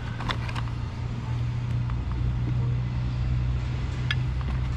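A steady low motor hum, with a few short clicks and rustles as boxed bottles and other items are handled, a cluster just after the start and another about four seconds in.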